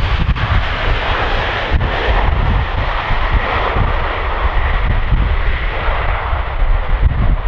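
The four Soloviev D-30KP turbofan engines of an Ilyushin Il-76TD freighter running as the aircraft rolls out on the runway after touchdown: a loud, steady jet noise over a deep rumble.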